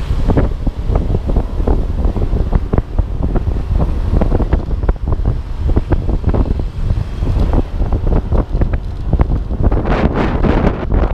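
Wind buffeting the microphone of a GoPro HERO4 mounted on a moving motor scooter: a ragged, gusting rumble, with the rush growing louder and brighter near the end.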